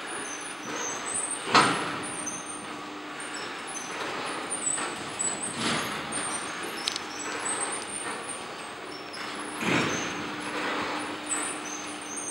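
Telescopic retractable bleacher retracting: a steady mechanical hum and rumble, with a heavy knock about every four seconds and short high squeaks scattered throughout.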